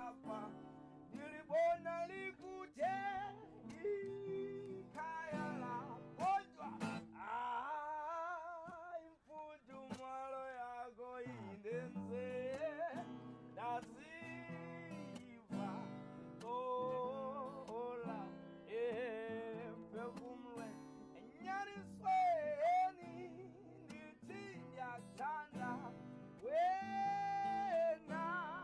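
Background music: acoustic guitar with a singing voice carrying the melody, some notes held with vibrato.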